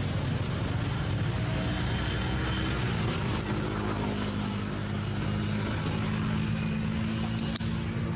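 Steady drone of a motor engine running at an even pitch. A high hiss joins about three seconds in and fades near the end.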